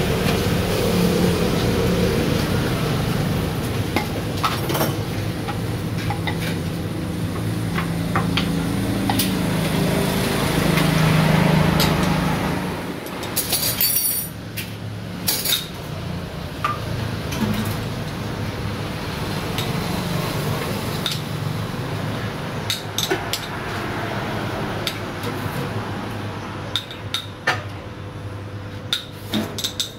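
Cups, utensils and glassware clinking and knocking as drinks are made behind a café counter. A steady low hum runs underneath for the first twelve seconds or so, then drops away, leaving scattered sharp clicks and clinks.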